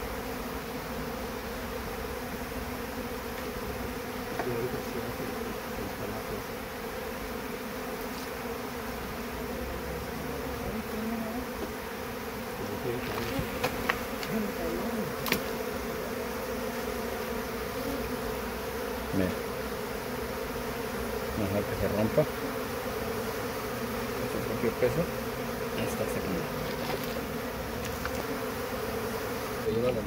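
Honeybees from an opened colony buzzing steadily in a dense mass as its comb is cut out. A few faint clicks and knocks come through about halfway.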